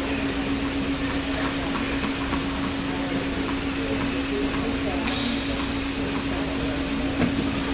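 Steady hum of an indoor tennis hall's ventilation with a constant low tone, under a low murmur of voices, with a couple of faint taps.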